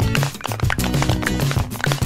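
Background music: sustained low notes under a steady tapping beat.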